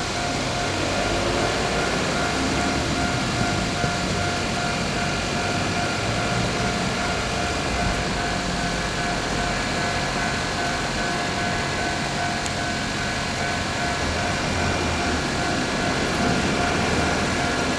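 Kintetsu electric train passing slowly over a level crossing, a steady rumbling run, with the crossing's warning bell sounding as a steady ringing tone.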